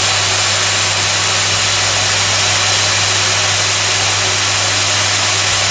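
Lathe with its chuck turning while a Bosch die grinder mounted on the cross-slide spins a pink grinding stone inside the chuck jaws, grinding the jaws true: a steady, loud hum with hiss. The stone is hardly removing any more metal, a sign that the jaws are almost ground in.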